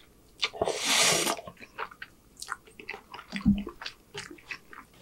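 Close-miked eating of spaghetti: a long wet slurp of noodles about half a second in, then chewing with small wet mouth clicks. A dull thump about three and a half seconds in is the loudest sound.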